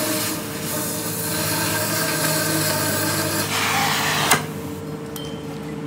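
Oxy-fuel cutting torch hissing steadily as its flame cuts through the steel axle housing tube, with a sharp click about four seconds in, after which the hiss is quieter.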